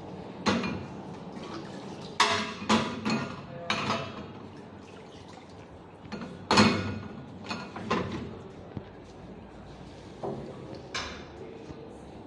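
Dishes and glassware clinking and clattering: about a dozen sharp knocks at uneven intervals, several with a short ringing tail.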